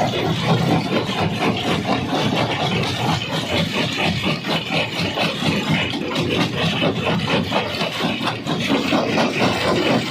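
Rock crusher running: a steady, loud machine rumble with a dense, irregular clatter and knocking of stone being crushed.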